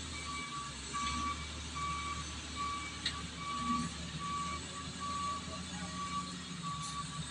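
Wheel loader's reversing alarm beeping steadily, a little more than once a second, over the low, steady running of its diesel engine: the machine is backing up.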